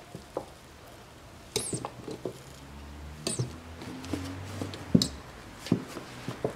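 Plastic gear-oil bottle squeezed by hand with its nozzle in a transfer case filler hole: wet squelches of oil being forced in and crackles of the flexing plastic, several sharp squeezes about a second apart, twice with a brief high squeak.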